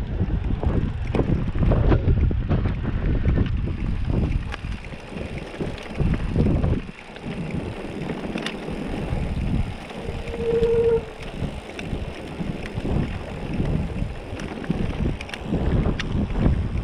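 Wind rumbling on the microphone of a handlebar camera on a moving mountain bike, with the bike rattling and its tyres rolling over gravel as frequent clicks and knocks.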